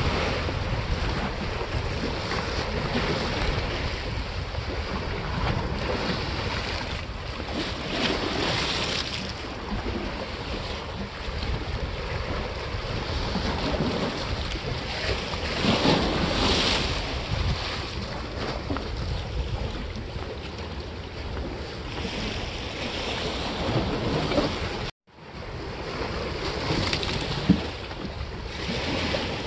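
Sea waves washing against the granite blocks of a breakwater, with wind buffeting the microphone; the wash swells louder a couple of times. The sound cuts out for a split second near the end, followed shortly by a sharp click.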